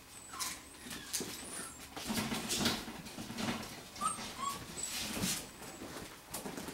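Five-week-old golden retriever puppies playing: a few short, high whimpers and yips among the scuffling of small paws and the toy they tug at.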